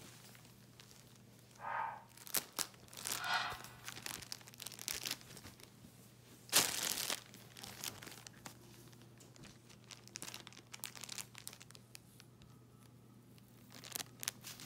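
Clear plastic bag crinkling and rustling in irregular bursts as a capuchin monkey paws, pulls and tears at it to get at the T-shirt inside, with the loudest rustle about six and a half seconds in.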